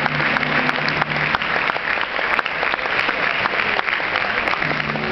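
Audience applauding: many hands clapping at once, steady and sustained.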